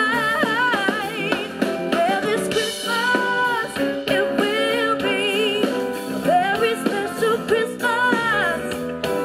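A woman singing live into a microphone over instrumental accompaniment, with vibrato on her held notes.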